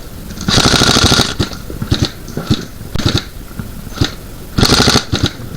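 Airsoft rifle firing two short full-auto bursts, one about half a second in and one near the end, with single sharp cracks between them.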